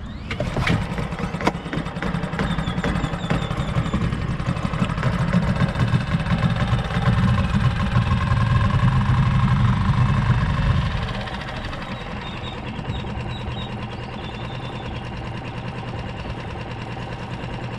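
Small Mercury outboard motor on a micro skiff, coming on suddenly with a few sharp clicks in the first second and a half, then running steadily. It runs harder for several seconds, then eases back to a lower, steady running level about eleven seconds in.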